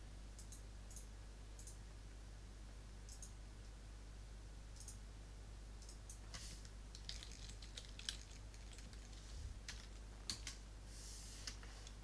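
Computer mouse clicks and keyboard keystrokes: a few separate clicks at first, then a quicker run of clicks and keys in the second half, over a faint low steady hum.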